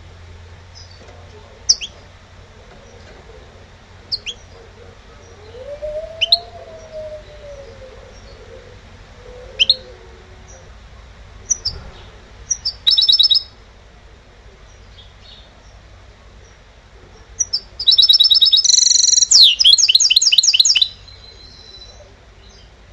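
Goldfinch–canary mule (mixto jilguero), a trained song bird, giving single sharp high call notes every couple of seconds and a short buzzy trill. Near the end comes a loud burst of fast song, about three seconds of rapid repeated notes and quick falling slurs.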